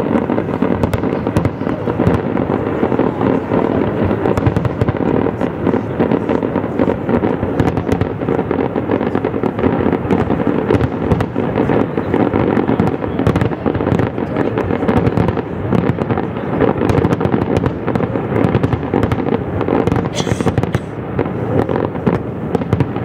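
Fireworks display: aerial shells bursting one after another in a dense, continuous barrage of bangs and crackling.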